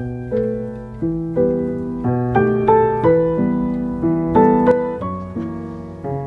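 Background piano music: a steady, unhurried melody of struck notes, each fading away, over held lower notes.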